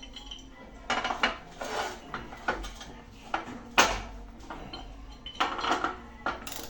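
Irregular metal clinks and clanks of a wrench and extension being worked on a nut while tightening it on a washing machine's transmission, the loudest clank a little before the middle.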